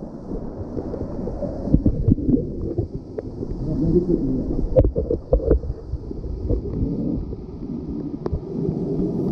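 Mine water cascading and splashing over rock right at the microphone, heard as a dull, low rushing with scattered knocks and splashes.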